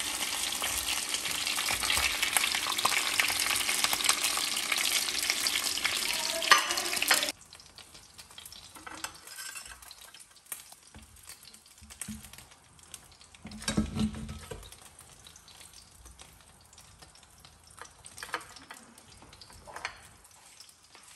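Pieces of fish frying in oil in a frying pan, a loud steady sizzle that cuts off suddenly about seven seconds in. After that only faint clicks of utensils on the pan and plate, with a low thump about halfway through.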